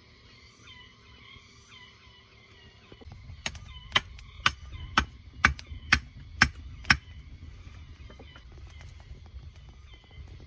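A run of about eight sharp knocks, roughly two a second, a few seconds in, over low rustling. Before them, faint short peeping calls repeat about every half second.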